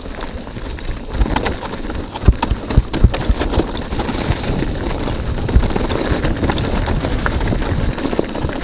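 Hardtail mountain bike rattling down a rough, leaf-covered dirt trail, heard from a handlebar-mounted camera: tyres crunching over leaves and dirt, wind on the microphone, and frame and handlebar knocks as it hits bumps, the sharpest a couple of seconds in, around three seconds and around the middle.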